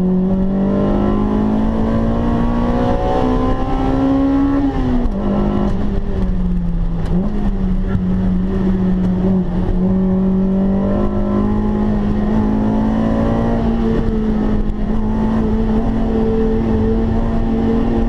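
Honda Integra Type R DC2's 1.8-litre four-cylinder VTEC engine, heard from inside the cabin, pulling hard with the revs climbing high, then dropping sharply about five seconds in, sagging and stepping back up around seven seconds, before holding high and slowly rising again. Road and wind noise run underneath.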